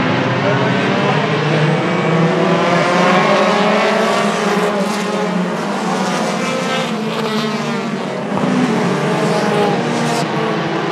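A pack of pure stock race cars running together, many engines going at once in a loud, layered drone, their pitch sweeping up and down as cars pass close by around the middle.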